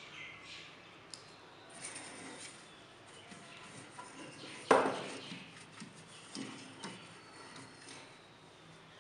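Silicone pastry brush dabbing and scraping oil onto a metal springform cake pan, with small clicks and taps of the brush against the pan and the oil bowl. A single sharp knock about halfway through is the loudest sound.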